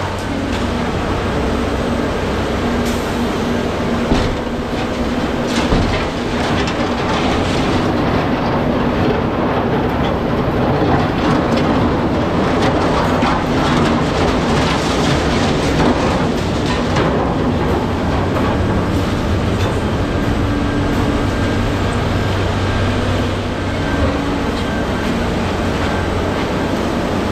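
Scrap material handler's diesel engine and hydraulics running steadily as its orange-peel grapple swings and drops tangled scrap wire and rebar into a trailer, with scattered clanks and rattles of metal.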